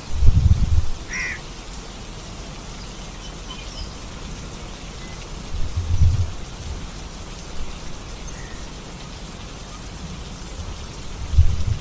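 Steady rain hissing, with low rumbles at the start, around six seconds in and near the end. A short high call, like a bird's, sounds about a second in.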